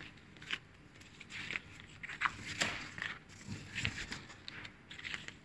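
Paper rustling and soft scuffs as a thin instruction booklet is opened and its pages turned, in short irregular bursts.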